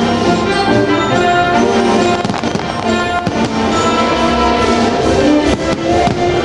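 Orchestral music with brass playing loudly from the show's sound system, over repeated bangs and crackles of fireworks going off throughout.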